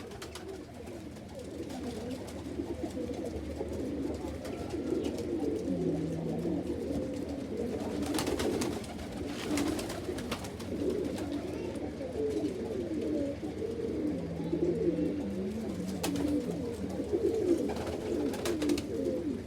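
Many domestic pigeons cooing together, their low, rolling calls overlapping continuously, with a few brief clatters between them.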